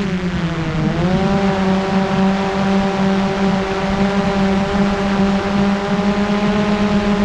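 Quadcopter drone's propellers whining. The pitch sags at the start, climbs back about a second in, then holds steady as the drone hovers.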